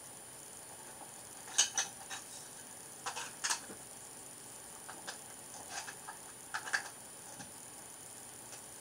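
Plastic Lego bricks clicking as they are handled and pressed together: short sharp clicks in small clusters of two or three, several times over a few seconds.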